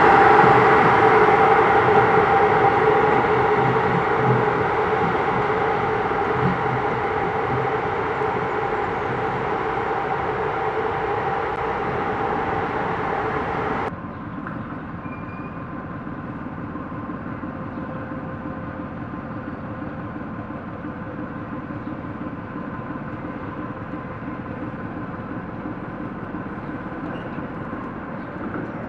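Shunting locomotive running with a steady whine in two pitches, slowly fading. About halfway through the sound cuts abruptly to a quieter, steady locomotive hum.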